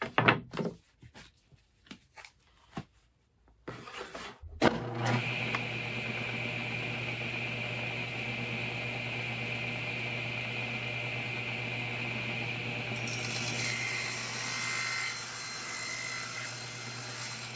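A few knocks as wood is set on the miter sled, then a table saw starts about five seconds in and runs with a steady hum and whine. Later the blade cuts a 45-degree miter through picture-frame stock for about four seconds, adding a higher hiss.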